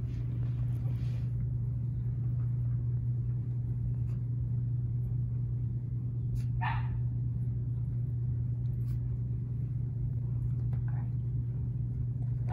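A steady low hum, with one short high squeak from a ten-day-old nursing puppy about two-thirds of the way through.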